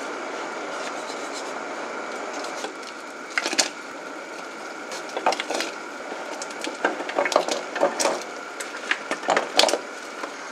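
A wooden spoon scraping and knocking against a stainless steel pot of stew, and chopped vegetables tipped in from an enamel bowl, over a steady background hiss. The knocks and scrapes come in scattered clusters, densest in the second half.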